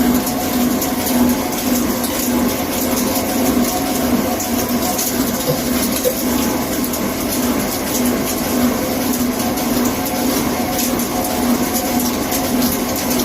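CNC lathe running while machining: a steady mechanical hum with a rushing hiss like flowing coolant.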